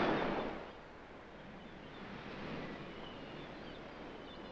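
Ocean surf washing onto the beach, fading out within the first second, then a quiet outdoor hush with a few faint bird chirps.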